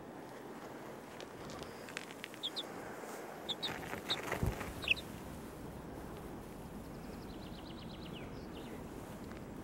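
Young chickens peeping in short, high chirps, several of them in quick pairs, clustered in the first half. Later comes a faint, rapid run of ticks, and a soft low bump sounds about halfway through over steady outdoor background noise.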